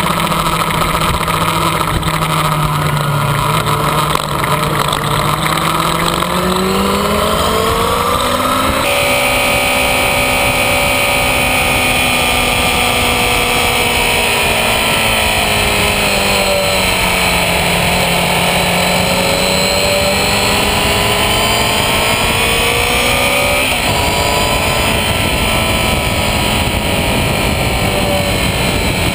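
Yamaha FZ6 inline-four sport bike engine running hard on a race track, its pitch climbing for the first several seconds, sinking slowly to a low about the middle, then climbing again, over steady wind and road rush. The sound jumps abruptly twice, at about 9 and 24 seconds, where clips are spliced.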